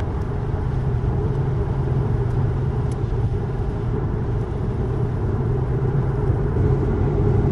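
Steady road and tyre noise inside an electric Tesla's cabin at highway speed on a wet road: a low, even rumble with a light hiss.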